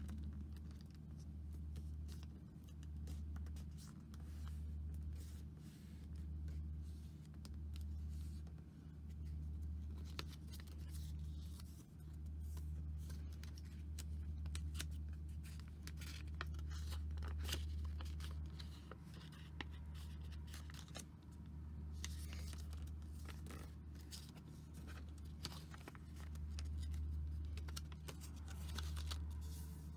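Origami paper being folded by hand: crisp crinkling and creasing as the sheet is slid, turned and pressed flat, busier in the second half. Under it runs a low hum that swells and fades every second or two.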